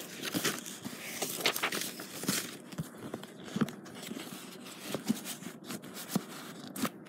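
Handling noise: a phone's microphone rustling and rubbing against sweatshirt fabric, with irregular small clicks and knocks as it is moved about.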